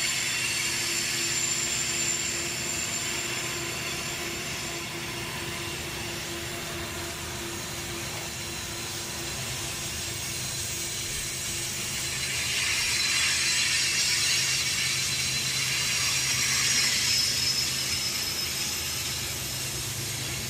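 Loaded crude-oil tank cars of a freight train rolling slowly past, a steady rumble of steel wheels on rail with a thin, high squeal from the wheels on the curve. The noise swells about twelve seconds in and eases again near the end.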